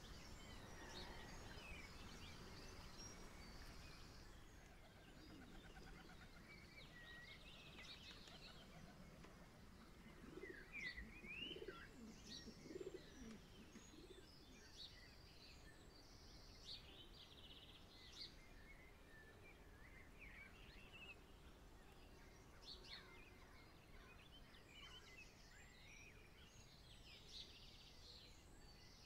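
Faint birdsong: small birds chirping and twittering throughout, with a dove cooing a few times about ten seconds in.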